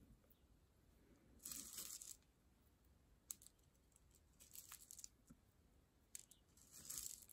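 Faint rattling and clicking of small seed beads as a needle is scooped through them in a plastic bead tray, in three short bursts with a few single clicks between.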